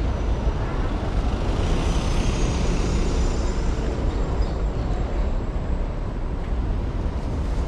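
Steady city street traffic noise: a low rumble of passing vehicles with an even hiss of road noise above it.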